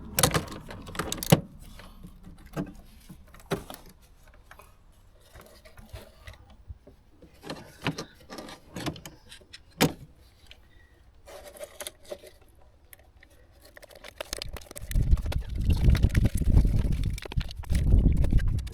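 Hand tools and metal parts clinking and knocking in scattered taps and clicks, as spanners work on battery and engine-bay fittings. A louder rumbling handling noise fills the last few seconds.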